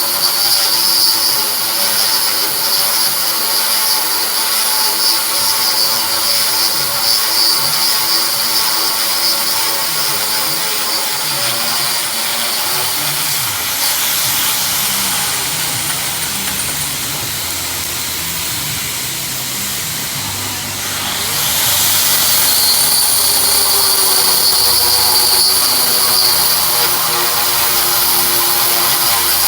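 A high-speed power tool running continuously with a steady high whine. Midway it eases off for several seconds, then comes back up to full speed.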